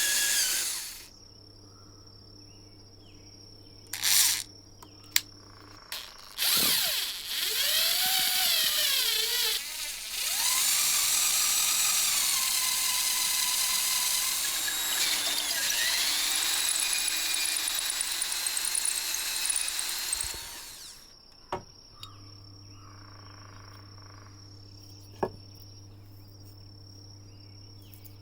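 Electric drill running in bursts: a short one, then a longer one, then a run of about ten seconds, its motor pitch rising and falling as the speed changes.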